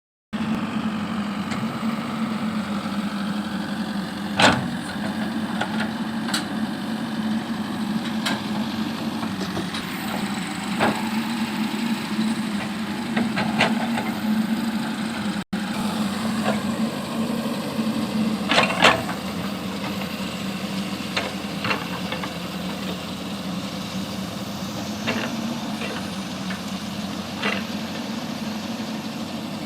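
JCB backhoe loader's diesel engine running steadily, with scattered sharp knocks and clanks, loudest about four seconds in and again near the middle.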